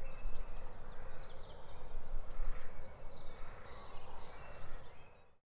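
Field recording of a blackcap singing: a varied, fast warble of short notes over outdoor background rumble. A quick trill comes about four seconds in, and the sound fades out and stops just before the end.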